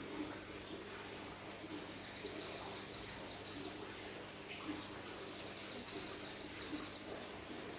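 Quiet mouth-eating sounds, soft chewing with a few small clicks, over faint birds chirping in the background and a steady low hum.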